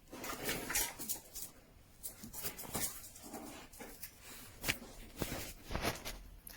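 A dog playing with a squeaky rope chew toy, making a run of irregular short chewing and scuffling sounds.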